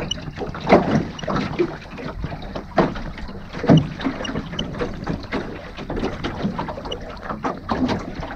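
Water splashing and slapping against the hull of a small wooden sailing rowing boat under way in a gentle breeze: a steady rush of passing water broken by irregular splashes.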